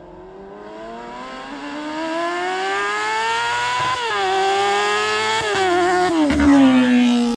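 Honda CBR250RR (MC22) 249 cc inline-four with an XOXO aftermarket exhaust, accelerating hard toward the listener and getting steadily louder: the high revs climb, drop sharply with a gear change about four seconds in, climb again, and shift once more. Near the end the revs fall and level off.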